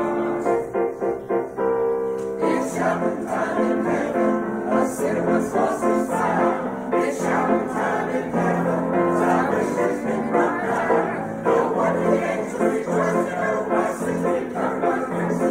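Small mixed church choir singing a hymn anthem. They hold a chord for about the first two seconds, then move on into fuller singing with changing notes.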